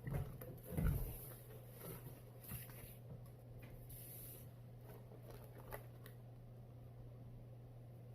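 Faint handling noise: a few soft knocks and clicks, mostly in the first two seconds and once more near the middle, over a steady low electrical hum.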